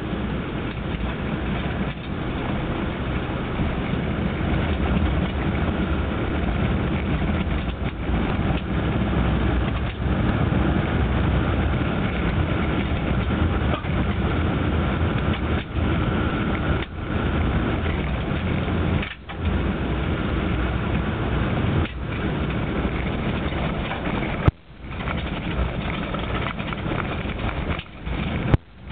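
A vehicle driving on an unsealed dirt road, heard from inside the cab: steady engine and tyre-on-gravel rumble. The sound drops out sharply for a moment a few times in the second half.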